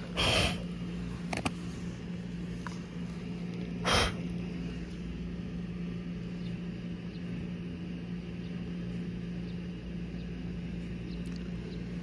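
Outdoor ambience: a steady low hum under a soft background hiss, with two brief hissing bursts, one right at the start and one about four seconds in.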